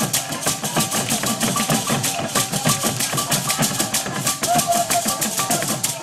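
Traditional drum ensemble playing a fast, busy rhythm on several hand drums, with a short higher tone repeating over the beat.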